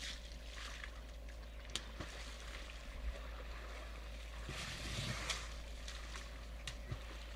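Water splashing and sloshing as African elephants wade and drink in a muddy waterhole, with a few sharp splash clicks and a louder burst of splashing about five seconds in.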